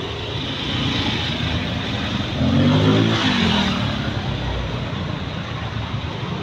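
Road traffic with a motor vehicle passing close by about halfway through, its engine note swelling and then dropping in pitch as it goes past.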